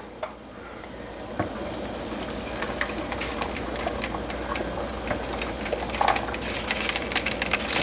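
Hardened caramel crackling with many small ticks as cool coconut flan custard is poured onto it from a blender jar into a metal bundt pan, over the steady sound of the liquid pouring.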